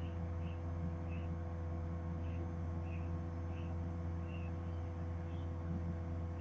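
LG 1.5-ton dual inverter air conditioner running in test-run mode, a steady low hum. Faint short high chirps repeat about twice a second over it.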